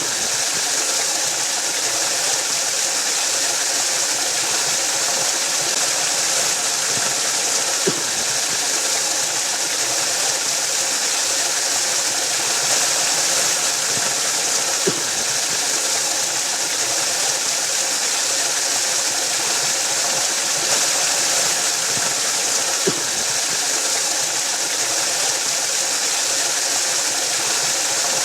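Waterfall rushing in a steady, unbroken hiss of falling water, with a faint click about every seven to eight seconds.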